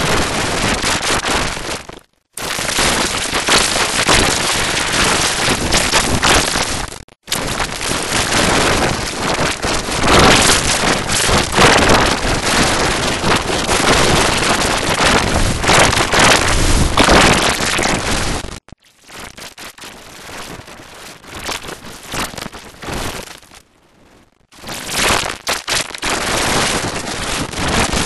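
Loud, heavily distorted logo audio, a dense harsh noise that covers all pitches with no clear tune or voice. It cuts out for a moment about two seconds in and again about seven seconds in. From about two-thirds of the way through it drops much quieter for several seconds, then comes back loud near the end.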